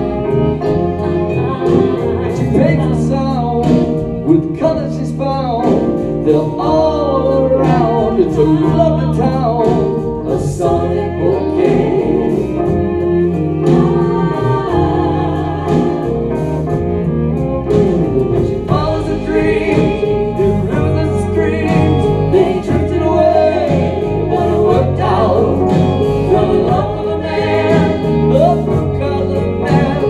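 Live band performing a song: a man singing lead over a Roland stage piano, with backing singers, violin and harp.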